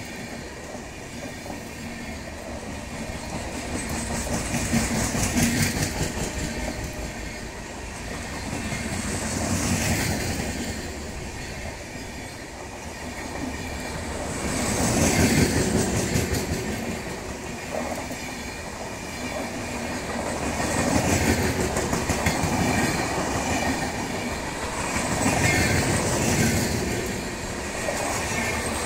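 Passenger coaches of an express train rolling past close by, the wheels clattering over the rail joints, the sound rising and falling about every five seconds.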